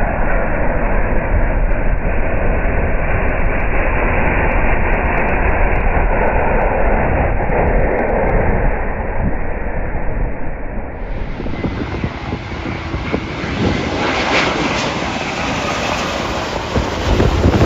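Heavy jet airliner passing close by: loud, steady engine noise with a deep rumble that holds throughout.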